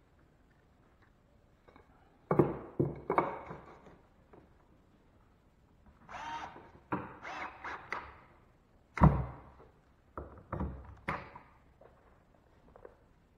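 Cordless drill-driver driving screws through drywall into a wood backing strip, in several short bursts with knocks and thumps between them; the loudest is a sharp knock about nine seconds in.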